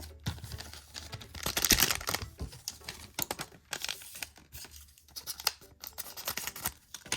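Paper-and-foil rustling, tearing and crisp clicks from a trading card pack being opened and its cards handled, the loudest stretch of rustling about a second and a half in.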